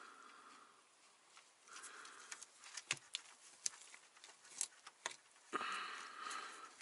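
Faint, scattered small metallic clicks and ticks of a bolt being worked by hand through a truck's transmission shifter linkage.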